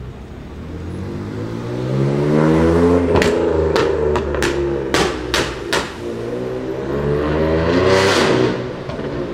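BMW M3 (F80) twin-turbo straight-six revving as it pulls away, its exhaust firing about six sharp pops and bangs in quick succession, then revving up again near the end.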